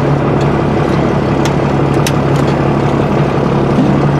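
Truck engine running steadily, heard from inside the cab, with a couple of sharp clicks or rattles about midway.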